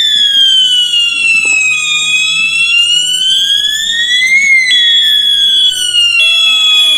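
Fire alarm system sounding in alarm during a test of a newly installed FDAS. One sounder gives a loud electronic tone that sweeps slowly down and back up, while a second steady high tone pulses on and off about every second and a half.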